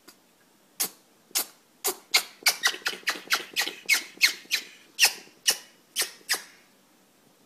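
An animal sneezing in a long fit: about eighteen short, sharp sneezes starting about a second in, bunched closest together, about three a second, in the middle, then spacing out and stopping shortly before the end.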